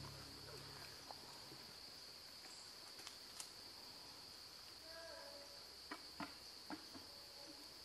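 Steady high-pitched buzz of forest insects, with a few sharp clicks scattered through it and a brief faint chirping call about five seconds in.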